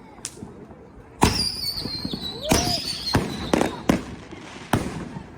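Fireworks going off: a loud bang about a second in, with a high whistle held for about two seconds, then a string of sharp bangs.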